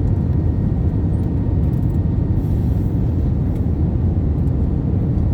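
Steady low rumble of cabin noise inside an Airbus A320 airliner: engine and airflow noise, with a faint thin whine above it.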